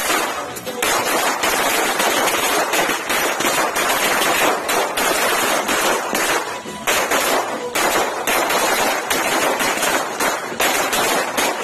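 Firecrackers exploding on the ground in rapid succession, a dense crackle of sharp bangs with a few short breaks.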